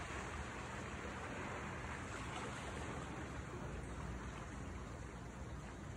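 Faint, steady wash of sea water, an even hiss with no distinct splashes.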